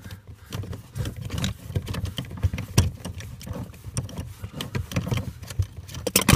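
Ratchet wrench with a 13 mm socket unscrewing the pinch bolt on the steering shaft's universal joint: a run of quick, irregular metallic clicks and knocks.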